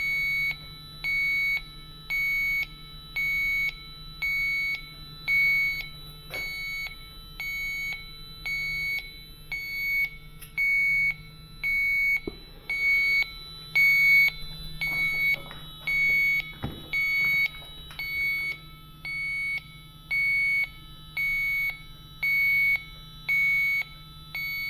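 Electronic refrigerant leak detector beeping steadily, about one beep a second, as it is moved around the refrigerator's sealed-system joints in a leak search. A few handling knocks occur around the middle, over a faint low hum.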